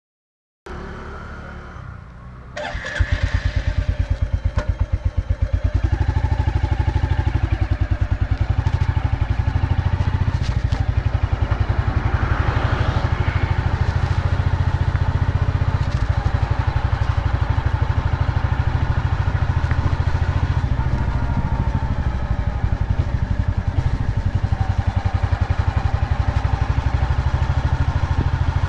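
Royal Enfield Bullet's single-cylinder four-stroke engine starting up about three seconds in, then running with a steady, fast, deep thump.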